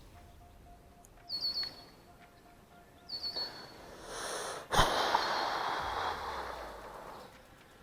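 Birds chirping outdoors in two short runs of quick, high, falling notes. About five seconds in, a sharp click is followed by a rushing hiss that fades over about two seconds.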